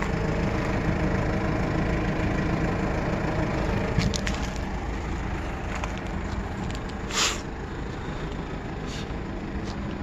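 A Kia Bongo 3 one-ton truck's diesel engine idling with a steady low hum, joined by a few faint clicks and a short hiss about seven seconds in.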